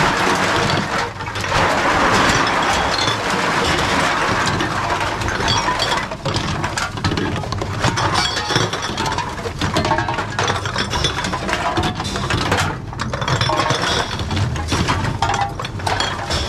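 Reverse vending machines running as aluminium cans and glass bottles are fed in one after another: a steady motor hum under frequent clinks and knocks of cans and glass.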